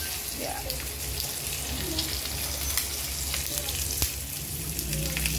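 Food frying in hot oil in a pan: a steady sizzle with scattered pops and crackles of spattering oil.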